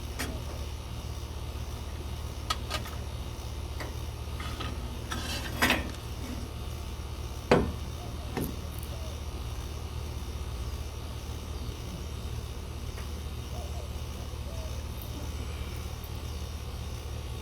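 A few scattered metallic clinks and knocks over a steady low hum, the loudest knock about seven and a half seconds in.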